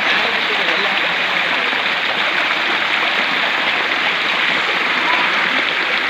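Small waterfall pouring over rock right at the microphone: a loud, steady rush of falling water.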